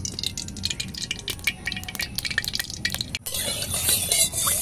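Mustard oil poured into an aluminium kadai, with a quick patter of small clicks and crackles. About three seconds in this breaks off and a steady sizzle of hot oil follows, with a spatula scraping in the pan.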